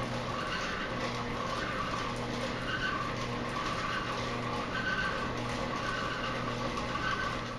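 Machinery running with a steady hum and a faint squeak repeating about once a second, fading out near the end.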